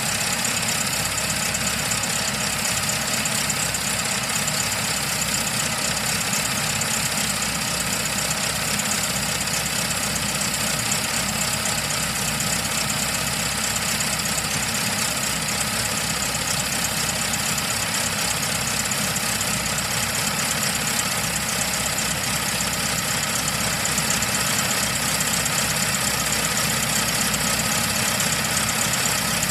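Engine idling steadily, at an even level throughout.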